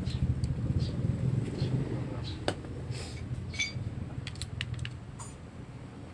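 Steel clutch plates and friction linings clinking and clicking as they are slid one by one onto a motorcycle's clutch hub, with a single sharp click about two and a half seconds in and a quick run of clicks near the middle and later part. A low steady hum runs underneath.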